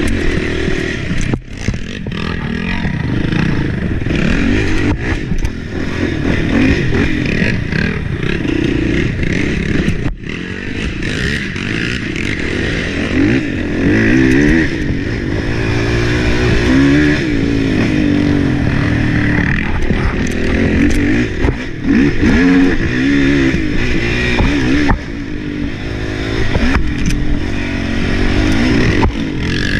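Race ATV's engine revving up and down again and again as it is ridden along a rough trail, with brief dips where the throttle is shut, about a second and a half in and again about ten seconds in.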